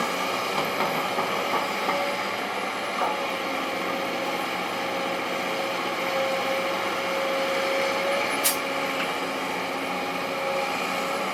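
Kobelco SK200-8 excavator's diesel engine running steadily under work, with several light clicks in the first two seconds and one sharp click about eight and a half seconds in.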